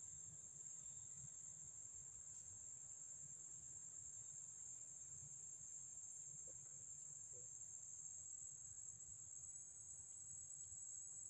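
Insects trilling in a continuous, faint high-pitched drone that holds steady throughout.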